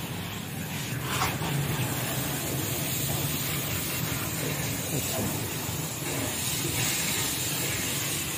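Jet of water from a hose spraying against a car's front wheel and underbody, steady throughout, over a steady low hum.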